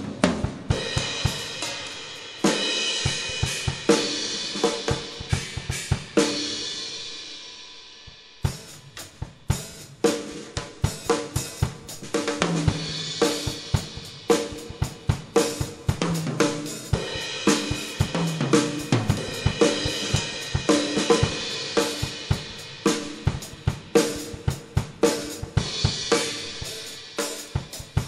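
Drum kit being played: kick, snare, hi-hat and cymbals in a steady beat, with fills down the toms. A crash cymbal rings out and dies away about six to eight seconds in before the beat starts again.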